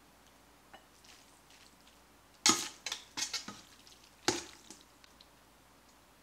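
Metal tongs scraping and clanking against a stainless steel stockpot as spaghetti and sauce are lifted out, with a few softer wet slops. Two sharp clanks about two seconds apart, near the middle, are the loudest.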